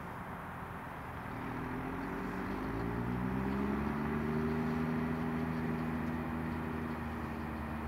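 New Holland T6070 tractor's six-cylinder diesel engine running under load as it pulls a grass harrow. About a second and a half in, the engine note rises in pitch and grows louder, then holds steady.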